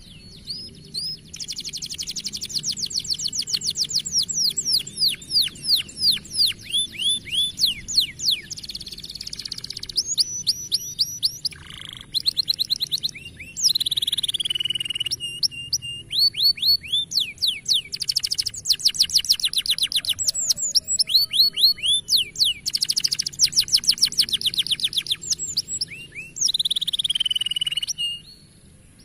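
Domestic canary singing: long, fast trills of repeated downward-sweeping notes, broken now and then by short held whistles, the song running on with brief pauses.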